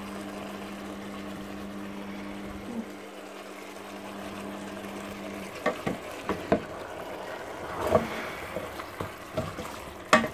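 Wooden spoon knocking against a steel pot as chicken pieces are stirred, over a faint sizzle. A steady low hum runs through the first half and stops about halfway, just before the knocks begin.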